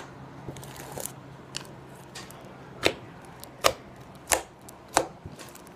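A big glitter slime being poked and pressed with fingers, giving a string of short, sharp clicking pops, about seven of them, coming quicker and louder in the second half.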